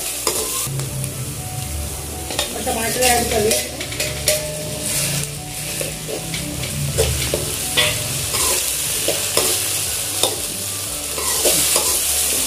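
Chopped onions, joined by chopped tomatoes, sizzling in hot oil in an aluminium kadai while a perforated metal slotted spoon stirs them, scraping and clinking against the pan in short strokes throughout.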